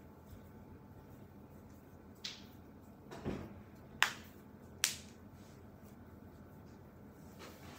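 A few brief sharp clicks and a duller knock, spaced about a second apart: a short tick, then a knock about three seconds in, then two sharp clicks a little under a second apart.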